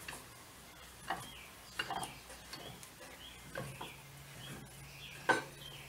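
Steel sliding T-handle of a Charles Parker 953-A bench vise being pushed and worked by hand, giving a few separate short metal clicks and clinks spread over several seconds.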